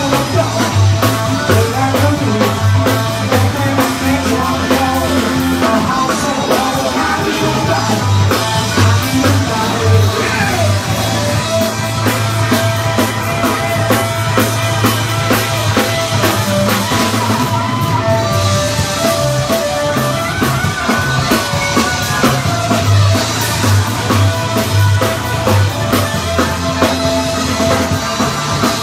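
A punk rock band playing live and loud, with a driving drum kit and low bass notes stepping under the guitars.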